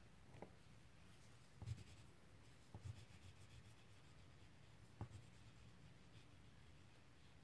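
Faint scratching of a wax crayon rubbed back and forth on paper while colouring, with four light knocks spread through it.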